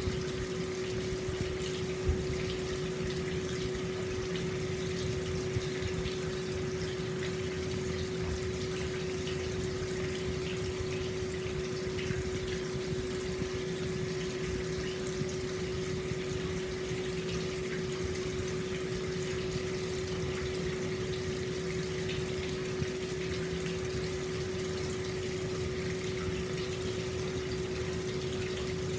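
Hot spring water pouring steadily into an open-air stone bath, a continuous splashing flow, with a steady low hum underneath.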